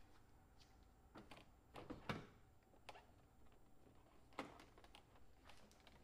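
Faint knocks and taps of a plastic Porsche interior door panel being set down and shifted on a pickup bed, a few separate knocks with the loudest about two seconds in.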